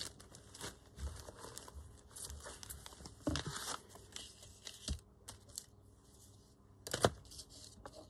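Paper rustling and crinkling off and on as envelopes and paper scraps are handled and set down on a cutting mat, with a sharper rustle about three seconds in and another, the loudest, about seven seconds in.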